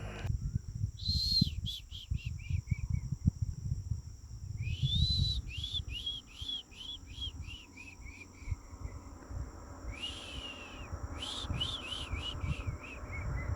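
A bird calling three times, about a second in, near five seconds and near ten seconds. Each phrase is a rising whistled note followed by a quick run of short notes, about four a second, each lower than the last. Low wind rumble on the microphone and a faint steady high buzz of insects run underneath.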